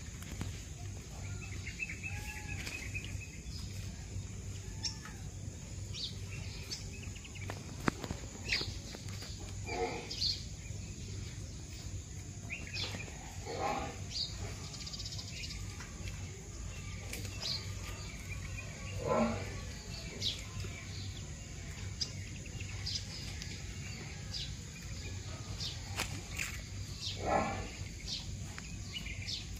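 Outdoor rural ambience: scattered short bird chirps and calls, with a few louder brief animal calls every several seconds, over a steady low hum.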